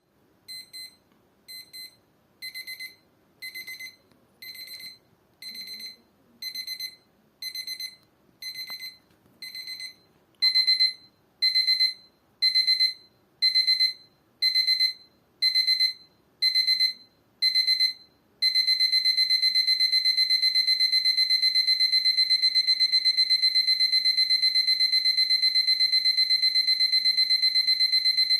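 Rhythm CRE807NR19 alarm clock's electronic alarm beeping in high-pitched bursts about once a second, stepping up in loudness: quiet for the first ten seconds, much louder after that. About eighteen seconds in it switches to unbroken rapid beeping, the escalating alarm's last stage.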